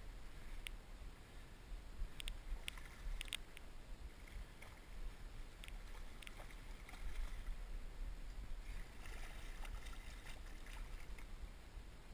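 Water splashing as a hooked striped bass thrashes at the surface close by, strongest over the last few seconds, with several sharp clicks in the first half.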